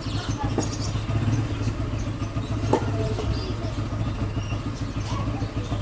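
An engine idling steadily close by, a low, fast-pulsing rumble, with one sharp tap a little before the middle.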